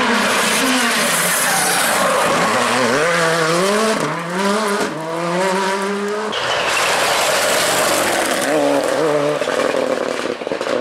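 Hyundai i20 R5 rally car's turbocharged four-cylinder engine revving hard as it accelerates past, its pitch climbing and then dropping with each quick gearshift. About six seconds in the sound switches abruptly to another rally car's engine at high revs, rising and falling as it approaches.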